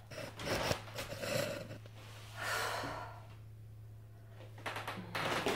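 A woman's audible breaths and sighs, with some rustling and handling noise in the first second or so as she sits down on a bed.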